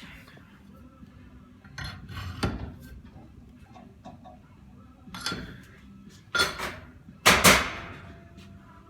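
Metal tools and pump parts clanking and rattling against each other in a few separate bursts, the loudest near the end.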